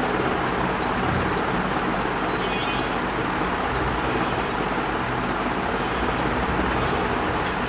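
Steady road traffic noise with no rise or fall.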